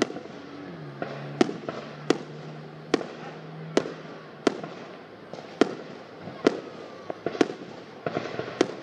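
Aerial fireworks display: a series of sharp bangs from bursting shells, about one a second, with a flurry of smaller crackling pops near the end.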